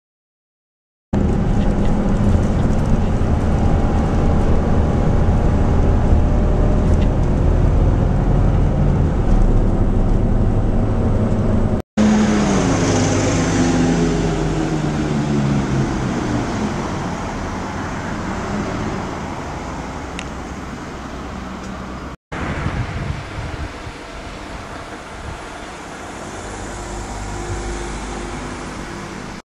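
Street traffic led by a bus engine running close by, loud and steady after a second of silence. About halfway through, the engine note falls away, and the traffic is quieter near the end.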